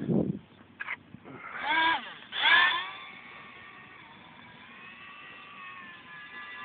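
Electric motor and propeller of a small RC airplane whining in flight: two loud surges that rise and fall in pitch, then a steady, fainter whine whose pitch wavers slowly. A brief low rumble comes at the very start.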